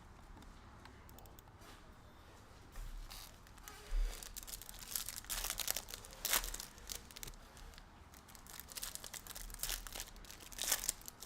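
Foil trading-card packs being torn open and crinkled while the cards are handled, in irregular rustling bursts that start about three seconds in.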